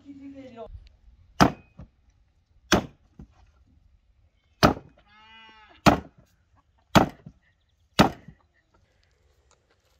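An axe chopping into a cattle head on a wooden block: six heavy blows, unevenly spaced one to two seconds apart.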